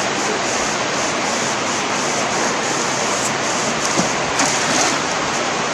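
Steady rush of flowing water running over rocks, an even, loud noise with no letup.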